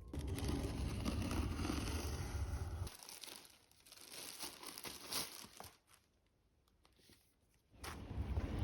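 Crinkling and rustling for about three seconds, then scattered crackles that stop about six seconds in.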